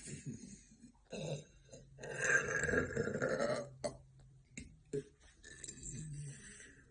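A woman burping: one long, low burp starting about two seconds in and lasting well over a second, with shorter, quieter burps before and after it.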